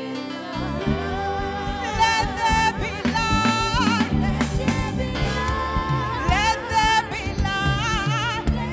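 A woman singing a gospel song into a microphone over instrumental backing, her held notes wavering with vibrato. The low backing comes in about half a second in, and the voice enters about a second in.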